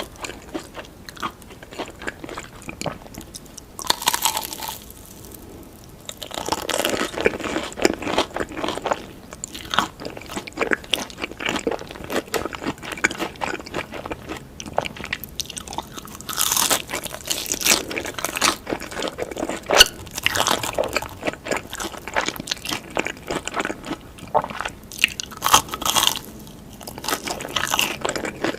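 Close-miked eating of cheese fingers: repeated bites and chewing that come in bouts, with short lulls between them.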